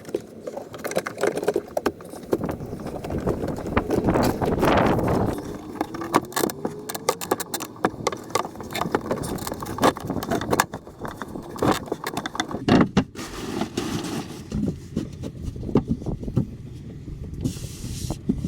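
Handling and fitting of wooden boards and cabinet parts: repeated knocks, clatter and scraping, with a short rising squeak about five seconds in.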